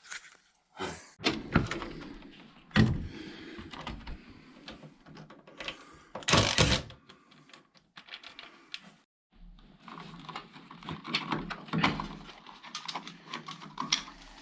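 Hand work on a doorway: scattered knocks, taps and clatter of tools and building materials being handled, with a louder, longer clatter about six seconds in and a run of quick small ticks near the end.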